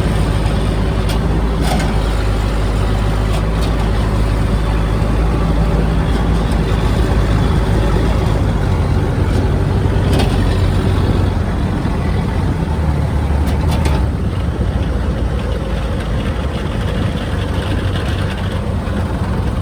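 Heavy diesel farm machine running steadily at working speed, with a few light clicks. It becomes slightly quieter about fourteen seconds in.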